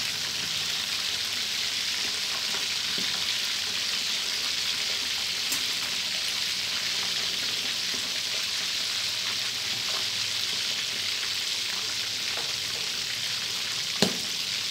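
Sun-dried red tilapia deep-frying in a wok of hot oil: a steady, even sizzle of bubbling oil with a few faint crackles, and one sharp pop near the end.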